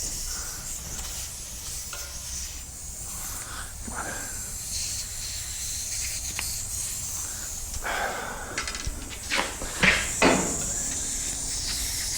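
Air hissing steadily out of a tire's open valve stem as the tire deflates, with a few sharp knocks and clatters a little after the middle.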